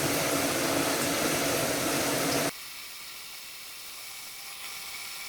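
Steady hiss of a pot of water boiling on the stove, dropping suddenly to a fainter hiss about two and a half seconds in.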